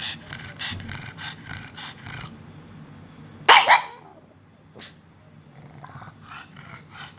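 A pet dog vocalising back instead of keeping quiet: a rapid string of short grumbling, growly noises, then one loud bark about three and a half seconds in, and softer grumbles near the end.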